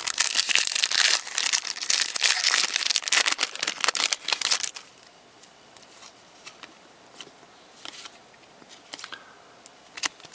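Trading-card pack wrapper being torn open and crinkled for about the first five seconds, then only faint scattered clicks as the cards are handled.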